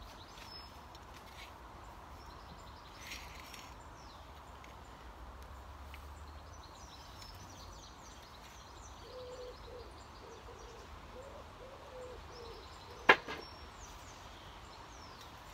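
Spade being dug into garden soil, with one sharp, loud clink of the blade striking something hard about thirteen seconds in. Birds chirp in the background, and a low repeated call sounds shortly before the clink.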